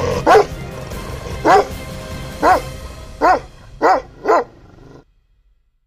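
Bhotia dog (Himalayan sheepdog) barking six times, the barks about a second apart and coming quicker toward the end, each rising and falling in pitch.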